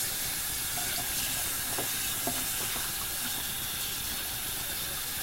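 A steady, even hiss with a few faint clicks over it.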